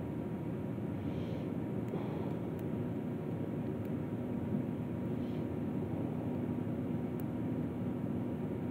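Steady low hum and hiss of background machine noise, with a few faint ticks.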